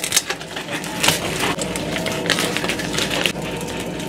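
Ice cubes clicking and crackling in a plastic cup as a drink is poured from a pouch over them, with plastic pouch packaging crinkling; scattered sharp clicks throughout.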